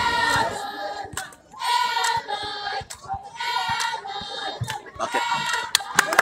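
Crowd of spectators chanting a repeated cheer in high voices, four phrases about a second and a half apart. Sharp claps or knocks start near the end.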